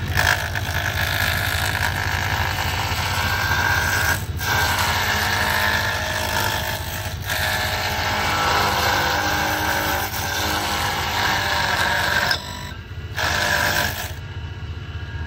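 Benchtop wood lathe running with a square roughing cutter scraping a square pen blank round: a steady motor hum under a rough cutting noise that breaks off briefly a few times and dies down near the end.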